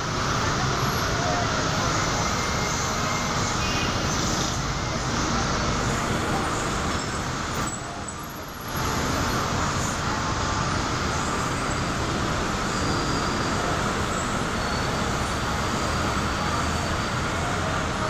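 Steady roar of heavy, slow-moving city traffic: a dense wash of car, truck and motorcycle engines and road noise, dipping briefly about eight seconds in.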